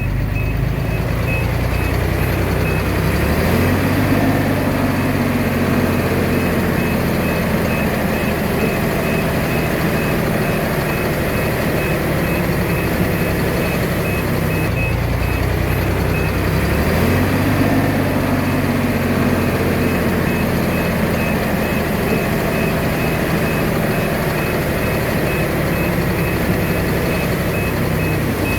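Diesel engine of a Komatsu D21A bulldozer working under load, its pitch rising and falling twice as it pushes soil. A reversing alarm beeps steadily over it.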